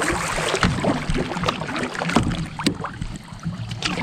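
Water splashing and sloshing around a fishing kayak, with a few sharp knocks or clicks scattered through it.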